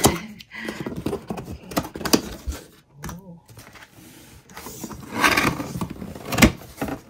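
Cardboard packaging being opened by hand: flaps pulled open and folded back, with scraping, rustling and knocks of cardboard. A louder rustle comes about five seconds in and a sharp knock near the end.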